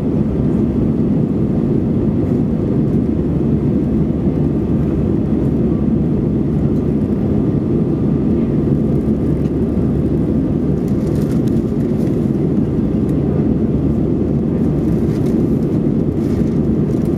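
Steady low cabin noise of an Alitalia Airbus A320 in flight: its engines and the air rushing past the fuselage, heard inside the cabin over the wing.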